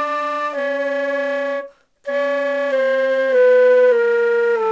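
A silver concert flute played while the flutist sings into it at the same time, her voice about an octave below the flute. The two sound together as short held notes stepping down a scale, about half a second each, with a brief breath about two seconds in. This is the 'singing in the flute' exercise, used to make the tone more resonant and less airy.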